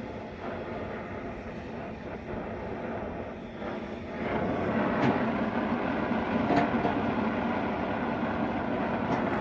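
Oxy-acetylene cutting torch flame running steadily as it heats a steel hinge, getting louder about four seconds in, with a few faint ticks of metal.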